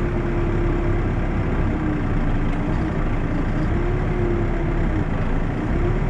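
New Holland backhoe loader's diesel engine and hydraulics running steadily while digging, heard from inside the cab: a constant low drone with a whine that dips and rises in pitch a few times.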